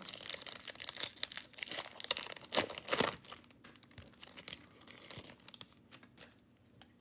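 A trading card pack being torn open, its wrapper crinkling and crackling. The crinkling is loudest about two and a half to three seconds in and dies away over the last couple of seconds.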